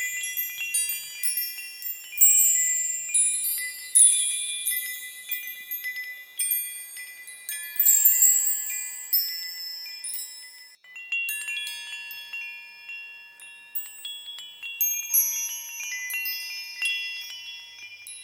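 Small metal chimes tinkling: many high, clear ringing tones struck at random in overlapping clusters, each ringing on after it is struck, with a brief lull a little before the middle.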